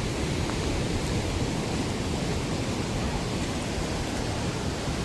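Steady rush of water falling at a waterfall, an even noise with no breaks.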